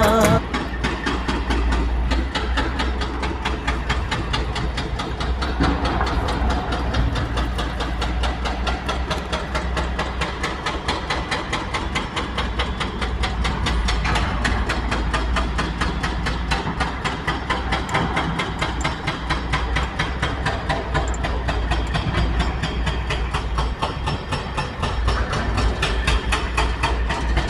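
Excavator diesel engine running steadily, a low rumble with a rapid, even pulse and a hiss over it.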